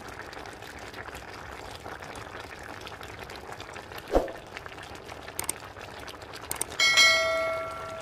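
A steady low hiss from the simmering stew, broken about four seconds in by a sharp click. Near the end comes a bright bell chime that rings and fades: the sound effect of a YouTube subscribe-button and notification-bell overlay.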